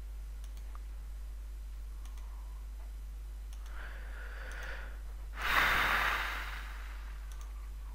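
A man sighs, a heavy breath into a close microphone lasting about a second, a little past halfway, over a steady low electrical hum, with a few faint computer mouse clicks.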